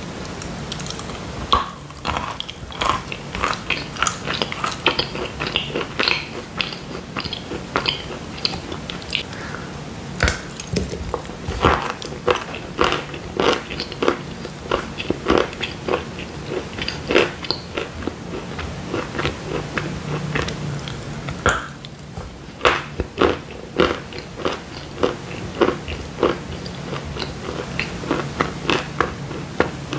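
A person chewing pieces of dry chalk bar: a long, irregular run of sharp crunches as bitten-off chunks break up in the mouth, thinning out briefly about two-thirds of the way through.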